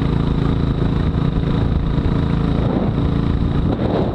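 Royal Enfield Classic 500's single-cylinder four-stroke engine running steadily under way. Its steady note breaks up and turns uneven over the last second or so.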